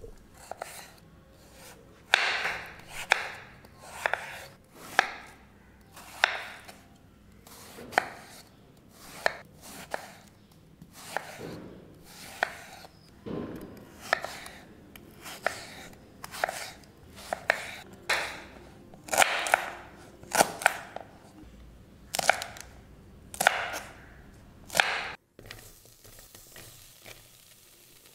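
Chef's knife slicing carrot and raw plantain on a wooden cutting board, about one cut a second, each ending in a sharp knock of the blade on the board. The cutting stops a few seconds before the end.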